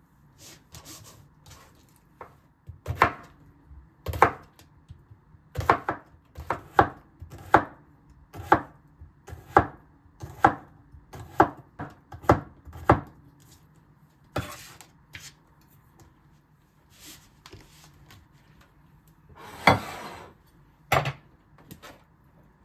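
Knife chopping on a cutting board: single sharp strokes at an uneven pace of about one a second, a few in quick pairs. A short scraping sound comes near the end, then one more knock.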